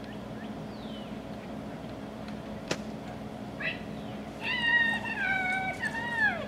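Miniature schnauzer whining: a short high cry about three and a half seconds in, then a long drawn-out one of about two seconds that drops in pitch at the end. A single sharp click comes before the cries, and a steady low hum runs underneath.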